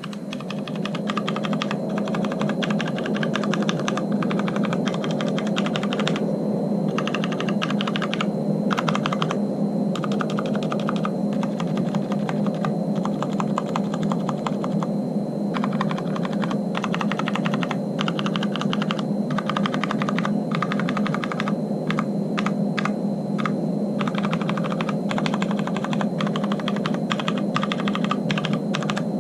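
Mechanical numpad with Cherry MX Brown switches and ABS double-shot keycaps typed on rapidly and without letup, a dense run of keystroke clacks with only brief pauses. The switches are unlubricated, the stabilizers lubricated, and the board rests on two layers of mouse mat.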